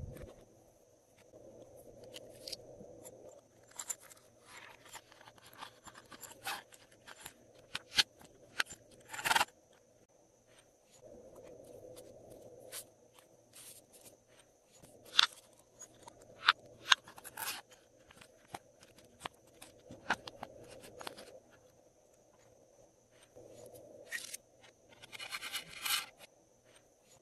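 Glossy slime being worked by hand: irregular sticky clicks and crackles over soft scraping, with a denser run of crackling near the end.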